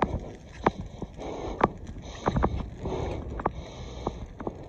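Bicycle rolling along a concrete sidewalk, with irregular sharp knocks and rattles as it bumps along, over low wind rumble on the microphone. There are two short hissing stretches, about one and three seconds in.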